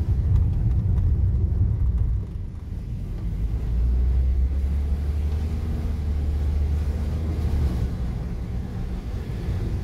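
Car driving, heard from inside the cabin: a continuous low rumble of engine and road noise, with a steadier low hum for a few seconds in the middle.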